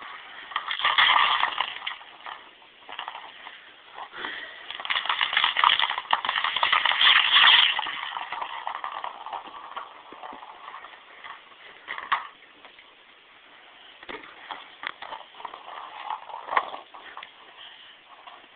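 A black Labrador playing with a small cat toy: irregular scuffling and clattering with sharp clicks, in bursts. The loudest bursts come about a second in and from about four to eight seconds in, then fade to scattered clicks.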